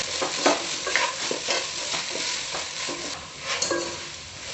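A wooden spatula stirring and scraping chunks of chicken and grated coconut around a nonstick frying pan, with a light sizzle of the dryish mixture frying. Sharper scrapes against the pan come every second or so.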